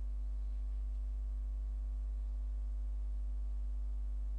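Steady low electrical hum, like mains hum on a recording line, with fainter steady higher tones above it.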